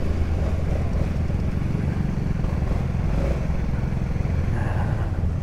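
Motorcycle engine running steadily, a continuous low rumble.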